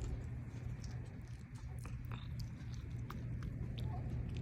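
A cat chewing its food, with scattered small clicks of its mouth, over a steady low background rumble.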